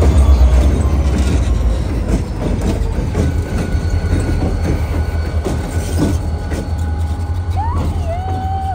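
A freight train moving through a rail yard: a heavy low rumble with irregular clanks and knocks from the cars, and a thin, steady high squeal over it.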